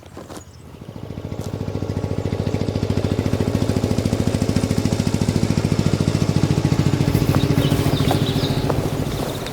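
A tractor engine driving by, its rapid low pulsing getting louder from about half a second in, holding strong through the middle and easing off near the end as it passes.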